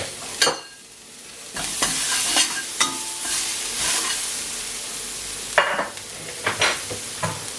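Chopped garlic sizzling in hot olive oil in a frying pan while a utensil stirs it, scraping and clicking against the pan. The sizzle gets louder about a second and a half in.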